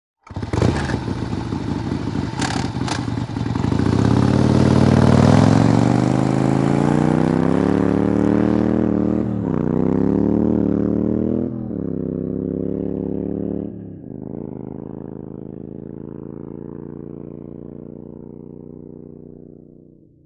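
Harley-Davidson motorcycle's V-twin engine revving up, then pulling away and shifting up through the gears, the pitch dropping at each of three shifts. It then fades into the distance.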